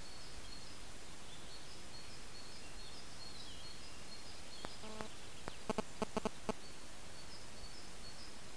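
Wild boar piglets grunting: one short call about five seconds in, then a quick run of five or six short grunts. A bird sings repeated high notes over a steady hiss.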